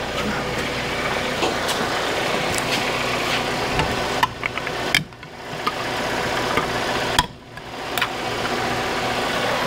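Car engine idling steadily, with a few light clicks.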